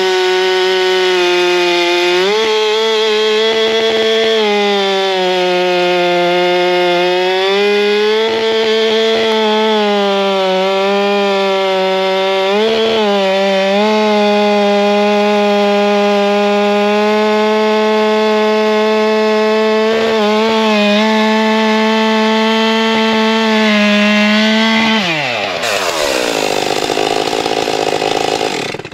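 Chainsaw with a 25-inch bar and skip-tooth chain running at high revs through a big, hard oak log, its pitch dipping briefly now and then as it loads in the cut. The skip chain keeps the revs high. About 25 seconds in the throttle is let off and the engine drops to idle.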